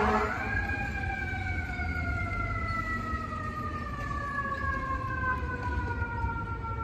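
Fire engine siren on FDNY Engine 38: one long tone that rises briefly near the start, then winds slowly down in pitch. A steady horn blast ends just as it begins.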